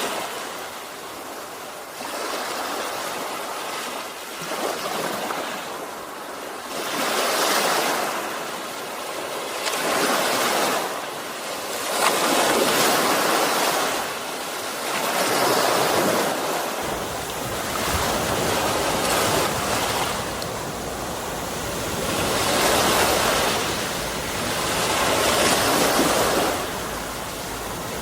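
Sea waves washing onto the shore, the surf swelling and falling back every two to three seconds. About two-thirds of the way in, a steady low rumble joins the surf.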